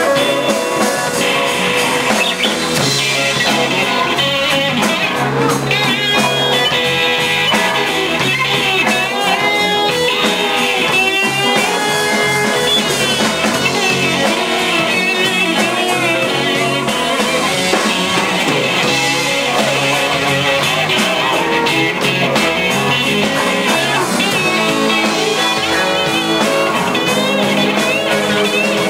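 Rock band jamming: several electric guitars with bass and drums, with a wavering, high lead line over the rhythm.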